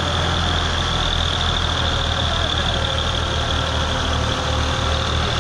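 Tractor diesel engines running steadily at low revs, hauling a trolley loaded with sugarcane along a dirt track; an even low hum that does not rise or fall.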